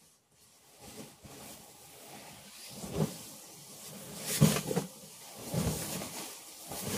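Nylon shells of puffy sleeping bags rustling and swishing as they are carried and bundled in armfuls, with a few louder swishes in the second half.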